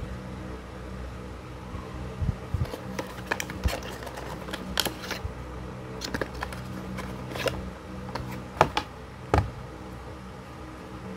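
Packaging being handled: scattered rustles and sharp clicks of cardboard, paper and a cable, the two loudest near the end, over a steady low hum.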